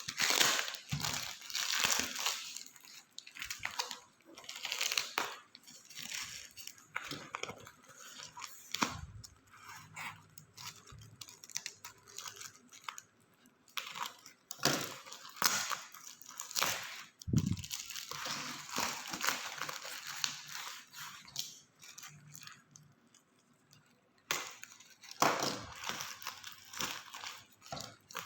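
Parcel packaging being torn open and crinkled by hand in irregular bursts, with a quieter stretch about three-quarters of the way through.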